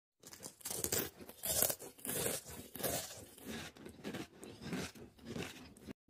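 A rapid run of short, close-up crunches, about two a second.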